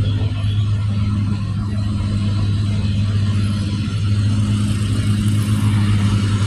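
Truck engine running with a steady low drone.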